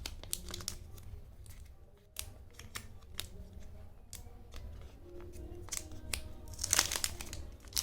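Crackling clicks and snips of the plastic wrap being opened and taken off a new smartphone, with a louder crinkle near the end.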